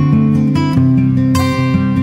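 Background music: strummed acoustic guitar with steady note changes.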